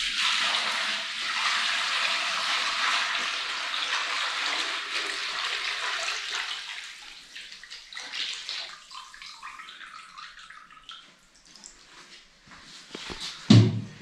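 Milk poured from an aluminium milk churn through a cloth strainer into a plastic bucket: a steady splashing pour that starts sharply, weakens about six seconds in, and thins to an uneven trickle toward the end.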